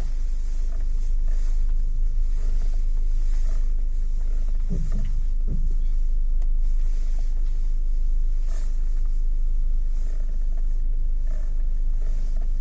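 Geely Atlas steering creaking as the wheel is turned, a few short creaks, the clearest two close together about five seconds in, over the car's steady low rumble.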